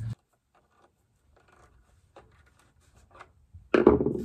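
Faint small clicks and scrapes of a cable being worked into the terminal of a solar charge controller. Near the end comes one short, louder clatter as a hand reaches for a screwdriver on the plywood floor.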